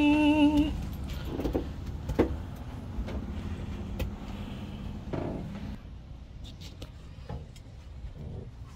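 A brief hummed voice note at the very start, then scattered light knocks and rattles from someone moving about inside a pop-up camper, over a steady low rumble.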